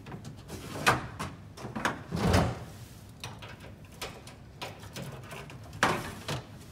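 Airbus A380 passenger door mechanism being worked by hand at its control handle: a string of metallic clicks and clunks, with a heavier low thump about two seconds in and another sharp clack near the end.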